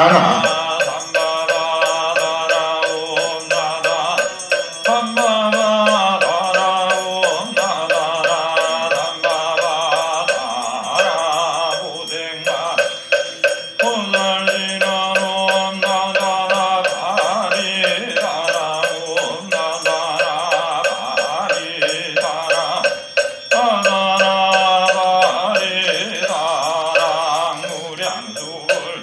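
Korean Buddhist mantra chanting (jineon): a voice intoning long, wavering sung phrases that pause every few seconds. A fast, steady jingling or ticking runs underneath.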